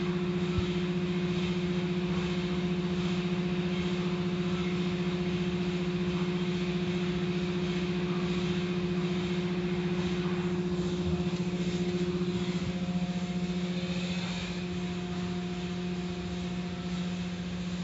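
Automatic car wash running: a steady machinery hum under the even hiss and swish of water spray and soapy cloth strips washing over a car. It eases a little near the end.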